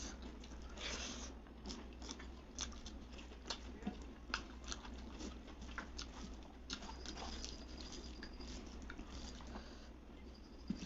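Close-miked eating sounds: a person chewing, with repeated short sharp crunches of crisp food, over a steady low hum.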